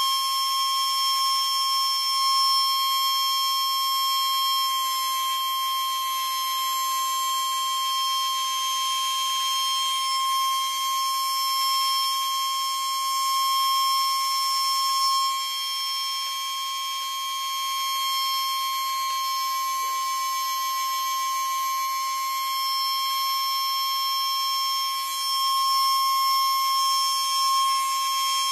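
Small high-speed pulse motor with a bifilar stacked pancake coil running at about 60,000 RPM: a steady, high-pitched whine, one strong tone with many fainter higher tones above it, matching the rotor's roughly thousand turns a second.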